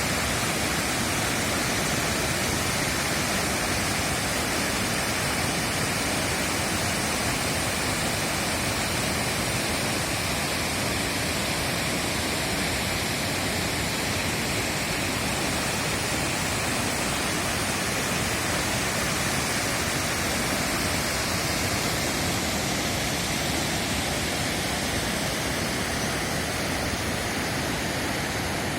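Fukiware Falls, a broad waterfall on the Katashina River, with water pouring over the falls in a steady, even rush.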